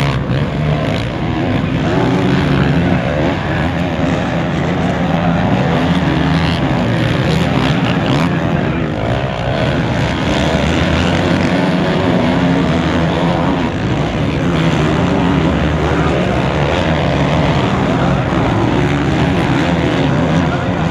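Several motocross bikes racing on a dirt track, their engines revving up and down through the corners and climbs.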